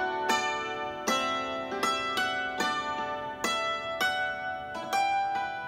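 Hammered dulcimer played with two hammers: a melody of struck string notes, about two a second, each ringing on under the next.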